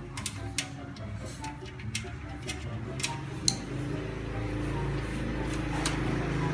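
A screw being driven by hand into a power supply's mounting hole on a steel PC case: scattered light metallic clicks and ticks, the sharpest about three and a half seconds in, over background music.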